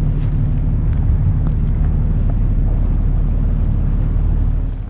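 Steady low rumble of a fishing boat's engine, mixed with wind on the microphone.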